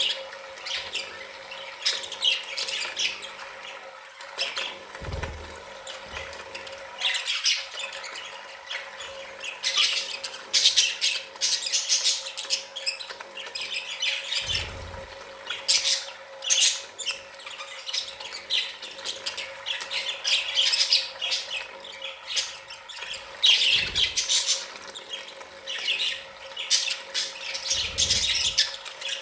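A flock of budgerigars chattering and squawking: a continuous run of short, high chirps and squawks, with a few dull low thuds.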